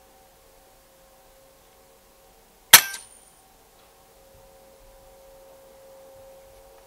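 A single shot from a .177 sub-12 ft-lb FX Dreamline Classic PCP air rifle: one sharp crack a little under three seconds in, with a short ringing tail.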